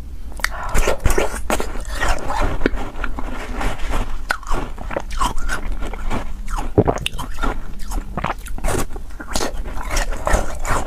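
Close-miked biting and chewing of a frozen ice pop, with many sharp, irregular crunches of the ice.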